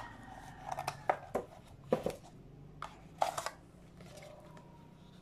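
Paperboard inserts of a smartphone box being handled: a few light taps and scrapes of cardboard, with a small cluster just after three seconds.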